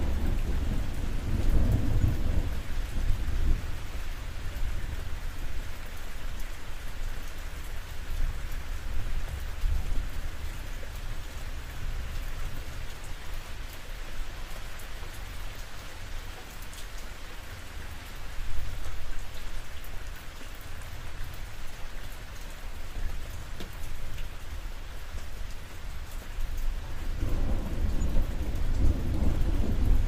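Steady rain falling on a roof, with low rolling thunder at the start that fades, then swells again near the end.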